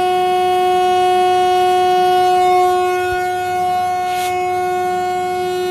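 A loud, steady tone held at one pitch with strong overtones, like an alarm or horn, unchanging throughout.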